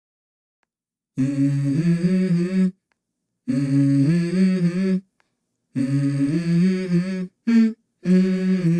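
Background music: a hummed vocal melody in short phrases of steady, stepped notes with brief gaps between them, the intro of a hip hop song. It starts after about a second of silence.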